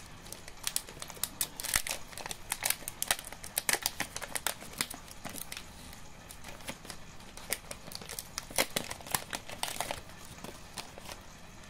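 Thick plastic booster-pack wrapper crinkling as it is handled, irregular crackles coming in two busy spells, a few seconds in and again near the end.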